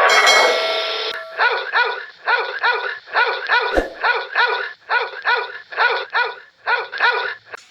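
An animal giving a rapid series of short pitched calls, about two a second and often in pairs, each rising and falling in pitch, after a brief noisy sound at the start.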